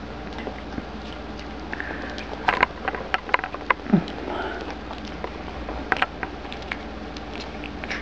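Scattered light clicks and taps from a shih tzu puppy moving and picking at dry kibble on a hardwood floor, thickest about two and a half to four seconds in, with a brief low vocal sound at about four seconds.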